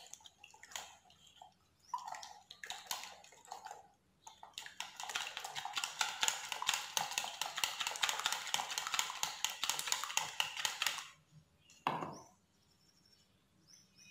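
Whisk beating eggs in a ceramic bowl, the tines clicking against the bowl: a few slower, uneven strokes, then about six seconds of fast, continuous whisking, followed by a single short knock near the end.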